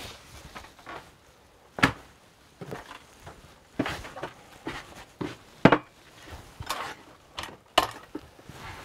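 Footsteps and an irregular series of sharp knocks and clinks, a dozen or so, as a mug and other objects are handled and set down on a wooden worktop; the loudest knocks come about two seconds in and again in the middle.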